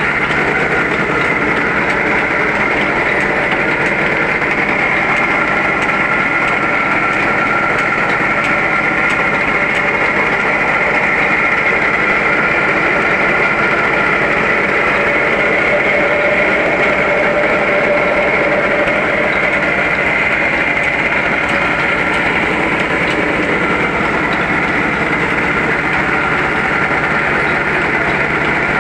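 ICHI N-50 rice polishing machine running steadily under load, rice passing through it and its flat-belt drive and pulley spinning, with an even, unchanging running sound.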